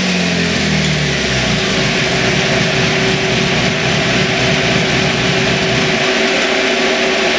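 Yamaha FZ-1 inline-four engine running hard on a chassis dyno through a GPR slip-on muffler, its rear wheel spinning the roller. The loud, steady engine note turns rougher and noisier about a second and a half in.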